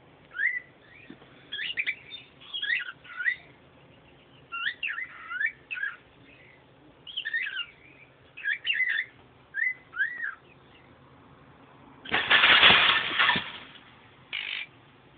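Pet songbird whistling and chirping in short rising and falling phrases. About twelve seconds in comes a loud rustling rush lasting a second and a half, then a brief one near the end.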